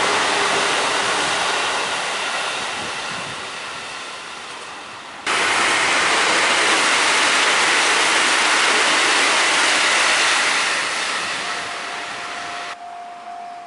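A JR Central 313-series electric train runs past with a loud rush of wheels on rail that dies away. Then another train's passing rush swells and fades. Near the end a level-crossing warning bell starts ringing with a steady, pulsing tone.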